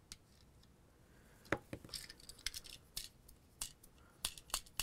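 Scattered faint clicks and scratches of a pencil tip picking at the inside of a small diecast toy truck's rear cargo area. They start about a second and a half in.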